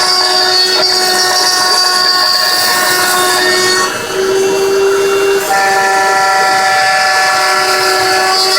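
CNC machine running, a steady multi-tone whine over a light hiss, the pitch of its motors shifting about four seconds in and again a second and a half later.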